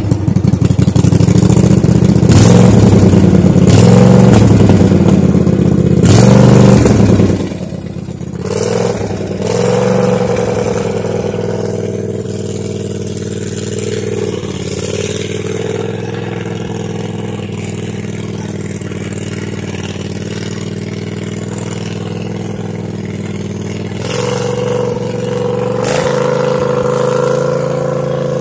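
John Deere 100 Series lawn tractor engine running. It is loud for about the first seven seconds, then drops to a quieter, steady note as the tractor drives along, with small rises and falls in pitch.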